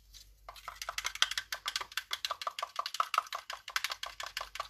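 Stirring acrylic pouring paint in a cup, a stick clicking rapidly and evenly against the cup wall, roughly eight to ten clicks a second. This is the paint being mixed to make it runnier.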